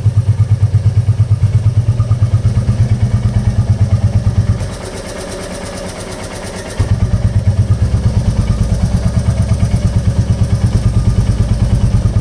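Royal Enfield New Classic 350's single-cylinder engine idling with an even pulsing beat, about five a second. About four and a half seconds in, the beat gives way for about two seconds to a quieter, fast, light ticking, then comes back.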